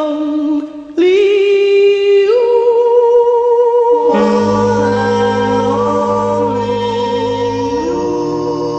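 A song playing: a singer holding long, wavering notes over sustained accompaniment, the music slowly fading toward the end.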